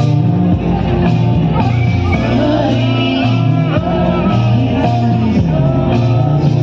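Loud music with a singer: a song with held notes and a repeating bass line.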